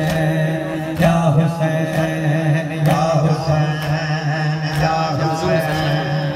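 A male reciter chanting a noha, an Urdu mourning lament, in long held lines through a microphone and loudspeakers, with a faint beat about once a second.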